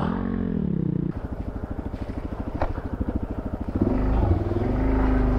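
Suzuki DRZ400S single-cylinder four-stroke engine chugging at low revs over slippery roots, its firing pulses plain. About four seconds in it is opened up and pulls louder and steadier.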